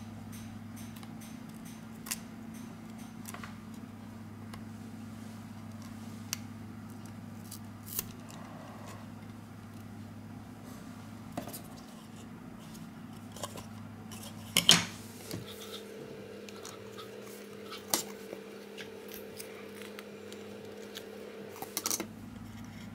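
Metal tweezers clicking and tapping against a phone's metal midframe and small internal parts: isolated sharp clicks every few seconds, the loudest a quick cluster about halfway through and another near the end. A steady low hum runs underneath.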